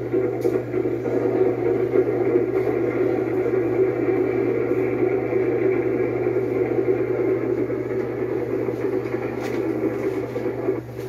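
Steady rumbling noise of a train running at speed on an old film's soundtrack, with a constant low hum under it.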